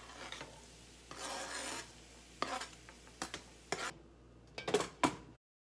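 Scraping as diced bell peppers are pushed off a plastic cutting board with a knife into a frying pan and moved about: one longer rasping scrape, then several short scrapes. The sound cuts off suddenly near the end.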